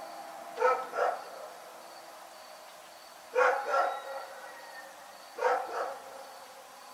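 A dog barking in pairs: three double barks, about two and a half seconds apart.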